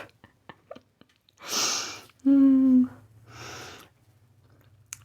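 A woman's breath sounds: a sharp breath in, a short steady hummed "mm" (the loudest sound), then a softer breath out.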